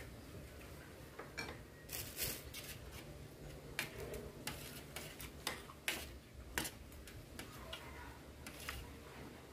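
Metal spoon clinking and scraping against a metal tray while scooping up food: a string of irregular sharp clinks.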